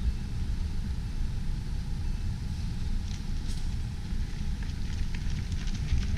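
Wind buffeting the camera microphone, a fluctuating low rumble. Faint quick footsteps of runners on asphalt join near the end.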